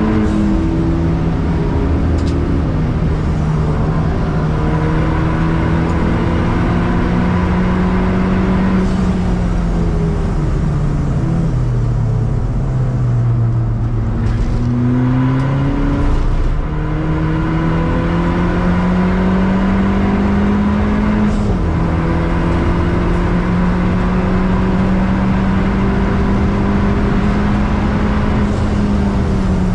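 Ford Fiesta ST180's turbocharged 1.6 EcoBoost four-cylinder engine heard from inside the cabin at speed on track. The engine note sinks as the car slows hard in the first half, then climbs again under full acceleration through the gears, with upshifts about two-thirds of the way through and near the end, over steady road and wind noise.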